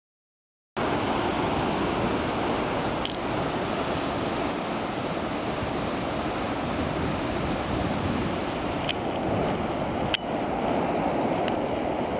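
Ocean surf breaking over rocks: a steady rushing wash of waves that starts abruptly about a second in, with a few sharp clicks over it.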